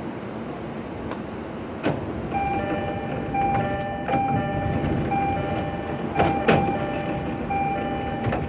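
Sliding passenger doors of an E233-3000 series electric train closing. A door chime beeps over and over from about two seconds in, with sharp knocks about six seconds in as the doors shut. This set's doors are noted for an unusual operating noise.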